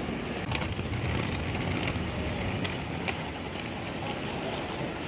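City street ambience: a steady hum of road traffic, with a few scattered light clicks and knocks.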